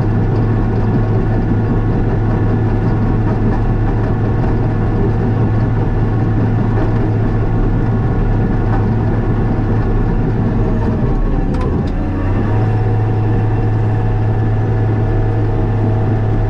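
Diesel engine of a piece of earthmoving equipment running steadily under work, its pitch dipping briefly about eleven seconds in and then coming back up.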